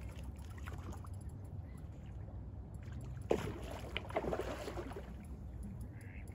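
Water splashing at the lake edge while a hooked carp is played: one sharp splash about three seconds in, then a short run of smaller splashes, over a steady low rumble.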